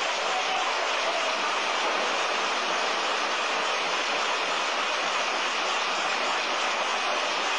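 Steady, even hiss with no rhythm, knocks or tones, unchanged throughout.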